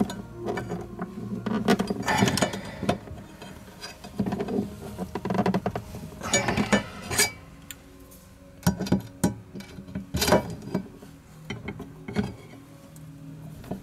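Irregular metallic clicks, knocks and clinks of a motorcycle top case's lock mechanism parts and hand tools being handled and fitted, with a few louder clusters of rattling.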